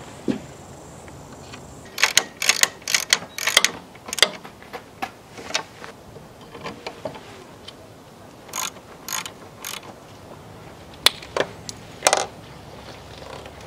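Sharp, irregular metallic clicks and clinks in three clusters, from hand tools and cable ring terminals being worked onto the studs of a tractor solenoid.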